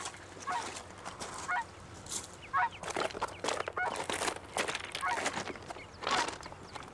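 Footsteps crunching over loose stones and scree on a slope, irregular and uneven, with short pitched squeaks recurring about once a second.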